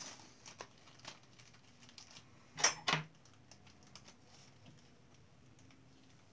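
Small handling noises from hands working at a bowl on a tabletop: scattered light clicks and rustles, with two louder crinkling scrapes close together a little before the middle.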